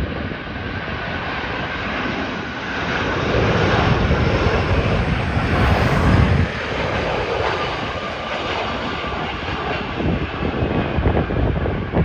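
Delta Boeing 757-200 on landing approach, its twin jet engines giving a loud, steady roar with a faint whine. The roar builds over the first few seconds, is loudest around four to six seconds in, then eases a little as the jet flares to land.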